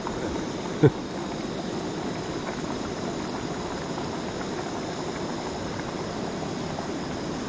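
Steady rushing of a mountain stream, with one short knock about a second in.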